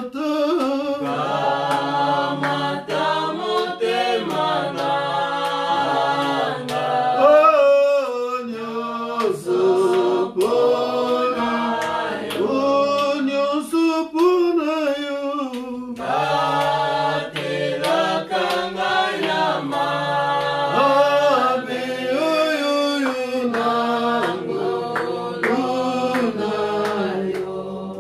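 A group of voices singing a hymn unaccompanied, the opening phrase coming round again about halfway through.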